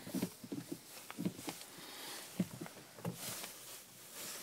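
Short, irregular knocks, clicks and rustling of handling inside a car cabin, with the engine not yet running.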